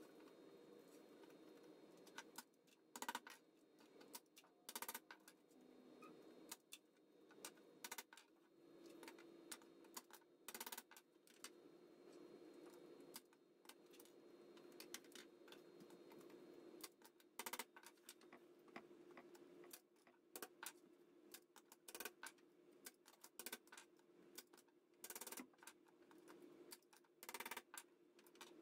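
Irregular sharp clicks and taps of hand tools working chicken wire on a wooden frame, some loud and some in quick pairs, over a faint steady hum.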